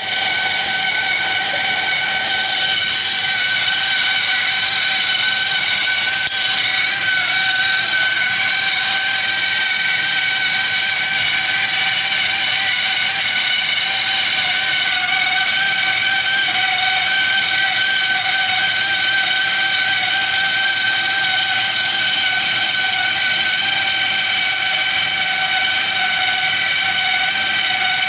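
BDS MAB 825 magnetic drill's motor running steadily, with a high, even whine.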